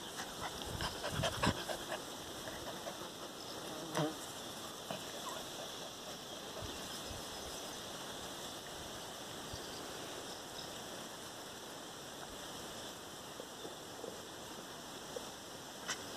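Four-week-old puppies playing, with a few short squeaks and scuffles: a cluster in the first two seconds, a sharper one about four seconds in, and another near the end. A faint steady high insect hum runs underneath.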